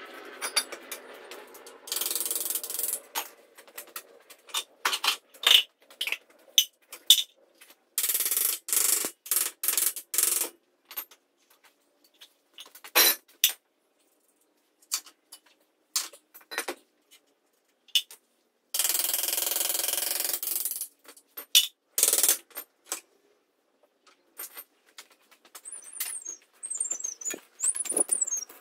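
Hand tools working on a buggy's steel wheel hub and suspension arms: scattered metallic clinks and knocks, broken by several raspy stretches of a second or two.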